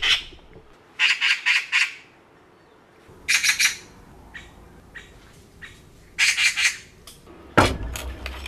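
A bird's harsh chattering calls, three short bursts of rapid repeated notes with a few faint single calls between them. A loud thump comes about three-quarters of the way through.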